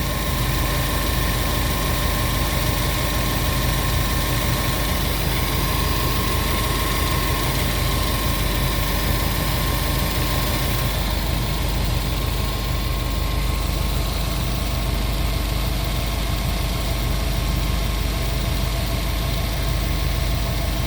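Car engine idling steadily with a low, even drone, left running with the heater on high to purge air bubbles from the cooling system after a radiator replacement.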